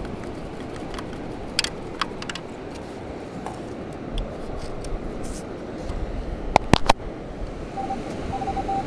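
Metal sand scoop clicking and clinking as it is handled, over a steady rushing background. Near the end a metal detector starts a broken, repeated beeping at one pitch, its signal on a new target that is big and shallow.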